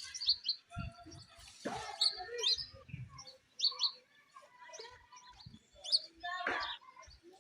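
Small birds chirping repeatedly with short, high notes. Two brief rushing noises cut in, about two seconds in and near the end.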